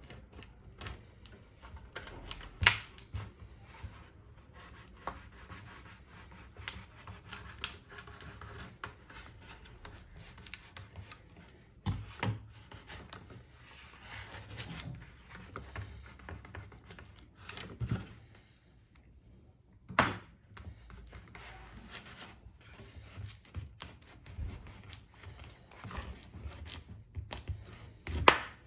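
A carbon-fibre mudguard being pried and worked out of its mould: rubbing and scraping with scattered clicks, and a handful of sharp knocks or snaps as it is forced free. The loudest snap comes near the end.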